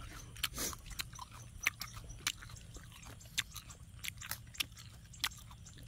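Close-up eating of grilled fish by hand: chewing with scattered, irregular small crunchy clicks of mouth and fingers at the fish and its bones.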